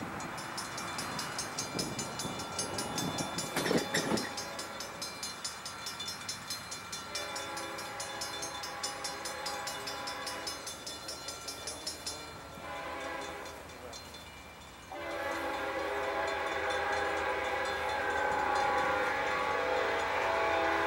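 Diesel locomotive's multi-chime air horn sounding from an approaching train, a chord of several notes: a long blast, a short one, then after a pause a louder long blast. The pattern is the long-long-short-long warning blown for a grade crossing.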